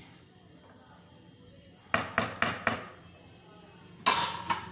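A ladle knocking against a metal cooking pot: four quick taps about two seconds in, then a louder ringing metal clank near the end.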